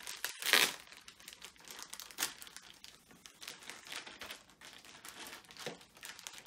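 Plastic and foil-lined packaging bags crinkling and rustling as a small toy is unwrapped, with the loudest crinkle about half a second in.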